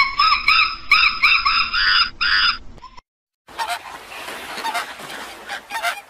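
A rapid run of loud, repeated calls for about three seconds, each rising and falling in pitch. After a brief gap, a large flock of flamingos calls over a noisy hum.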